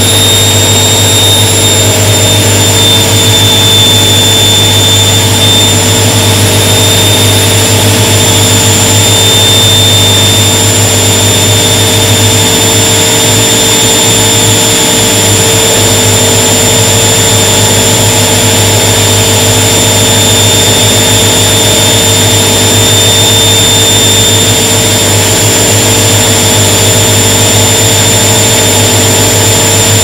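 Front-loading washing machine running with its drum turning: a loud, steady motor hum with a thin high-pitched whine over it, unchanging throughout.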